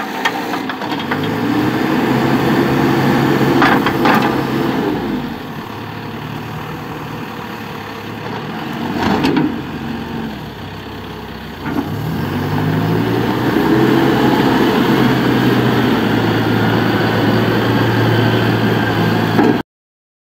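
John Deere 310SK backhoe's four-cylinder diesel engine running, its engine speed rising twice and holding at a steady higher throttle, easing back in between. A few short clunks come at about 4 and 9 seconds, and the sound cuts off abruptly near the end.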